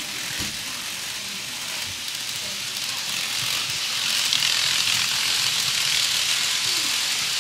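TOMIX N-gauge 800 series Shinkansen model train running on its track: the small motor, gears and wheels on the rails make a steady mechanical running sound, which grows louder about halfway through as the train comes close.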